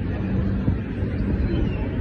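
Steady low rumble of vehicle traffic, with the phone's microphone lying against cloth.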